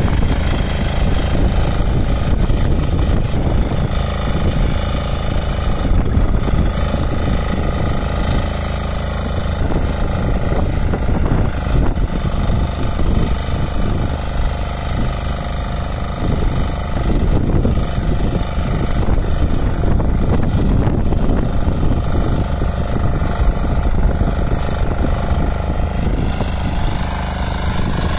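Single-cylinder Weima diesel engine of a walk-behind rotary power weeder running steadily under load, its rear tines churning through soil.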